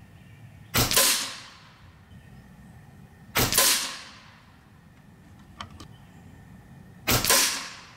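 Three shots from a Hatsan Factor RC Sniper Long .22 PCP air rifle, each a sharp crack with a short fading tail, about three seconds apart. A faint click comes between the second and third shots.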